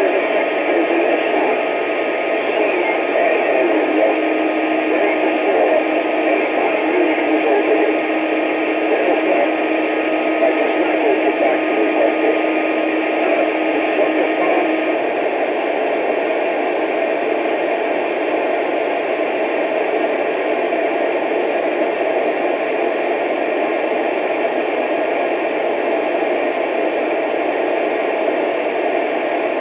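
Radio receiver static: a steady, loud hiss of band noise with no voices. A faint steady low whistle sits in the hiss from about four seconds in until about halfway through.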